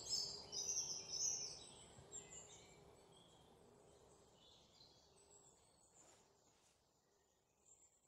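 Faint outdoor background noise with birds chirping, clearest in the first two seconds, then fading away.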